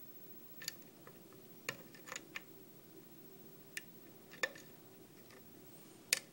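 Hook pick working the pins of a brass Mallen pin-tumbler lock cylinder under a tension wrench: scattered light metallic clicks and ticks at irregular intervals, the loudest about four and a half seconds in and near the end.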